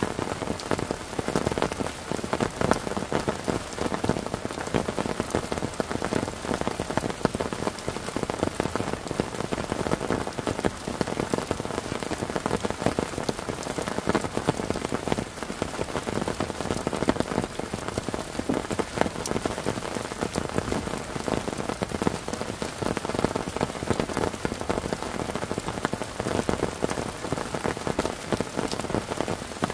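Heavy downpour falling steadily, a dense hiss of rain with countless close drop hits on the wet wooden deck.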